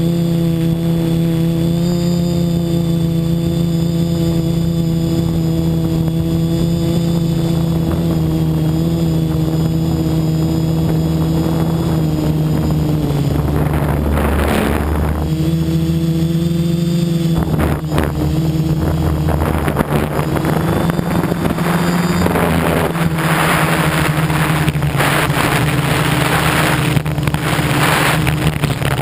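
Electric motors and propellers of an F450 quadcopter buzzing steadily, heard from the camera on board, the pitch shifting slightly with throttle. Wind noise on the microphone swells in gusts, most in the second half.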